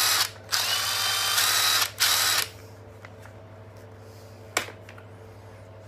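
Brushless cordless power tool, model TD132, run with no load in three short bursts as the trigger is squeezed and released. A single sharp click comes about four and a half seconds in.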